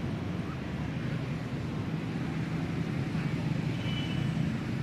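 A steady low mechanical hum, with a brief faint high tone about four seconds in.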